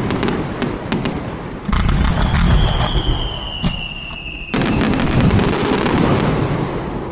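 Fireworks display: dense crackling bursts, with a loud boom about two seconds in and another about four and a half seconds in. A high whistle, falling slowly in pitch, sounds between the two booms.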